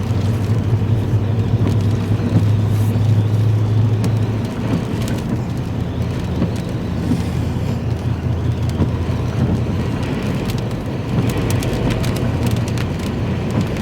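Engine and road noise of a moving vehicle heard from inside the cabin, a steady low drone that eases about four and a half seconds in. Scattered light ticks come through, more of them near the end.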